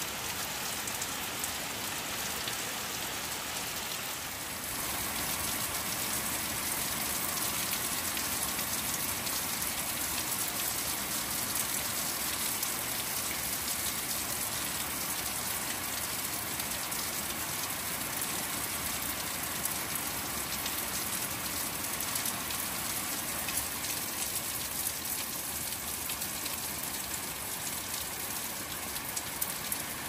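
Steady rain falling on garden plants and on glazed earthenware crocks, a little louder after about four seconds, with a few sharper drop hits near the end.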